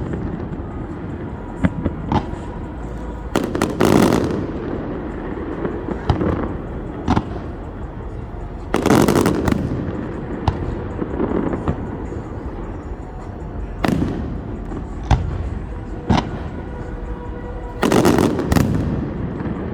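Fireworks going off: a run of sharp bangs and pops at irregular intervals, with heavier clusters of explosions about four seconds in, around the middle, and near the end.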